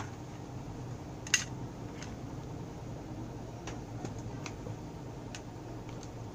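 Plastic clicks and ticks from a clear precision screwdriver case being handled and opened: one sharp click about a second in, then several fainter ticks. A steady low hum runs underneath.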